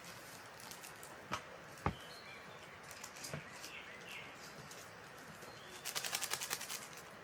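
Faint bird chirps over a steady outdoor hiss, with a few sharp knocks, the loudest about two seconds in. About six seconds in comes a quick rattling run of clicks lasting about a second.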